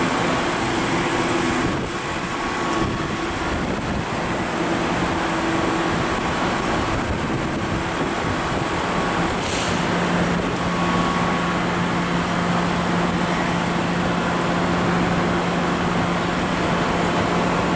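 Steady city street traffic noise. A brief high hiss comes about nine and a half seconds in, and right after it a vehicle engine's low steady hum sets in.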